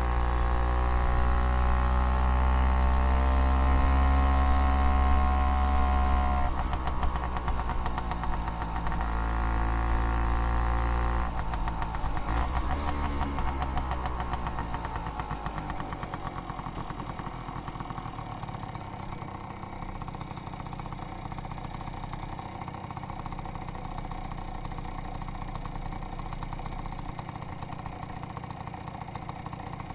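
Vespa PX 200 two-stroke single-cylinder engine, heard through its old exhaust, held at raised revs with a brief dip about six seconds in. About eleven seconds in the revs fall away, and it settles into a steady, quieter idle for the second half.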